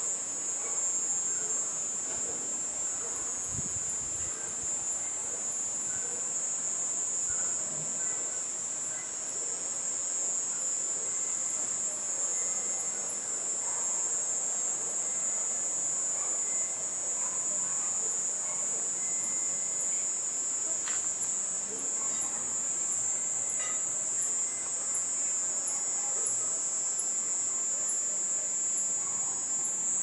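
Cicadas singing in one steady, high-pitched drone, with faint high ticks repeating through the second half.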